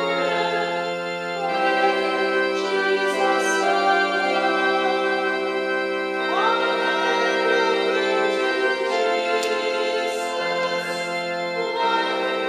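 Organ playing a hymn in held chords that change every second or two, with a congregation singing along.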